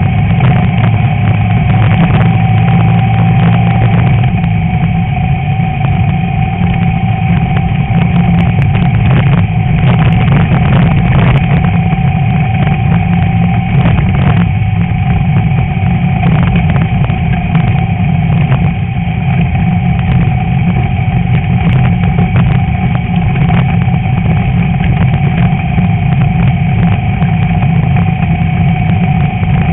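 Class 11 VW Beetle's air-cooled flat-four engine running steadily under way off-road, with frequent short knocks and rattles from the car jolting over rough ground.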